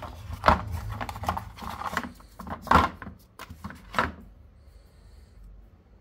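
Handling noise from unboxing: rustling and sharp clicks as small plastic mount parts are lifted out of a moulded packaging tray, with three louder clicks. The clicking stops about four seconds in.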